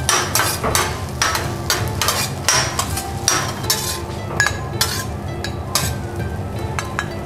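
Steel teppanyaki spatulas clanking and scraping on a hot flat-top griddle as fried rice is chopped and tossed, many quick sharp strikes, with a light sizzle underneath.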